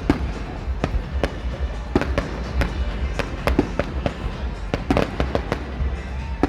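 Fireworks going off: an irregular string of more than a dozen sharp bangs and pops, some close together, over a steady low rumble.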